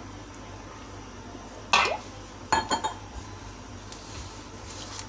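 Glass mixing bowl knocked and clinked by a hard object while flour is worked by hand: one sharp knock just under two seconds in, then a quick run of three or four clinks about half a second later.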